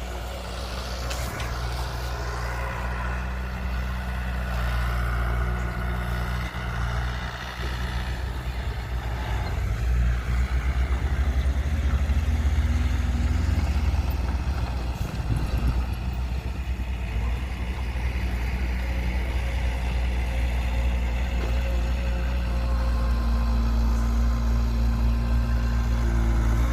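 Heavy diesel machinery engine running steadily at a low hum, growing louder over the first ten seconds or so.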